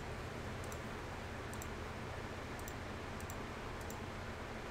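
About five faint computer mouse clicks, some in quick pairs, over a steady low hum and hiss.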